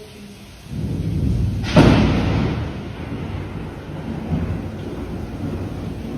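Low rumbling that swells about a second in, then a sharp loud crack about two seconds in, followed by a rolling rumble.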